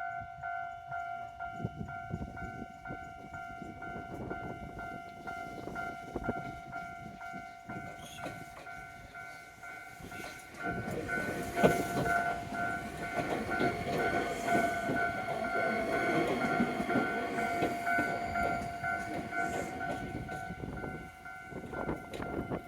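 Japanese level-crossing bell ringing steadily in a quick repeating clang. About ten seconds in, a train reaches the crossing and runs through it: a louder rumble with wheel clatter under the bell, which keeps ringing.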